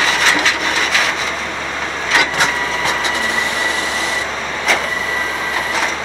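Grapple truck running, with a steady high whine over the engine noise and several sharp metallic clanks and rattles from the grapple and boom. The loudest clanks come about two seconds in and near five seconds.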